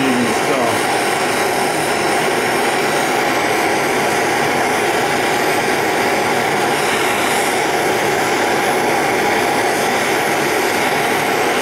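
Gas torch flame hissing steadily while it heats a copper-to-aluminum tube joint for flux-cored aluminum solder.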